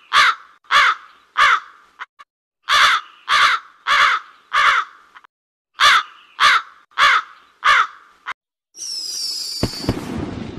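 Crow cawing sound effect: harsh caws in three runs of three or four, about two a second, with short pauses between runs. Near the end a firework whistles down in pitch and bursts with a bang and crackle.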